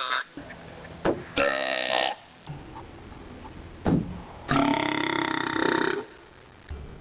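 A person burping: two long, loud burps, the first about a second and a half in and the second, about a second and a half long, near the middle, with a few short sounds between them.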